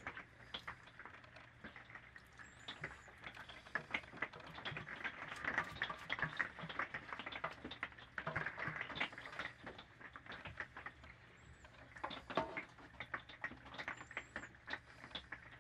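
A spatula scraping a thick, wet shredded-chicken filling out of a baking pan into a ceramic slow-cooker crock and spreading it over tortillas: irregular soft scrapes, squishes and light taps.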